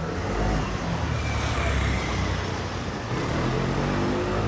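Motor vehicle engine running close by amid steady city street traffic noise.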